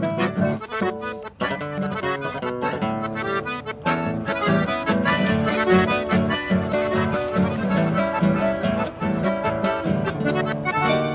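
Instrumental folk music led by an accordion, with guitar accompaniment: a lively run of quick notes over held chords.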